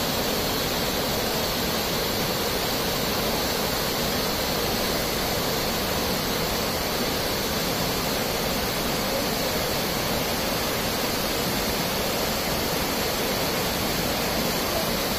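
A 70-foot waterfall pouring steadily: an even, unbroken rush of falling water.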